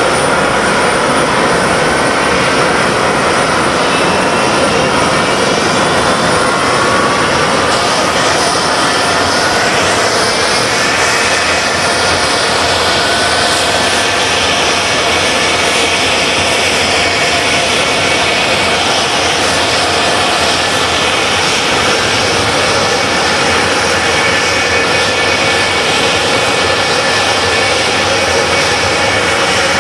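F-4 Phantom II's twin J79 turbojet engines running on the ground: a loud, steady jet roar with a whine that rises slowly in pitch partway through and then holds.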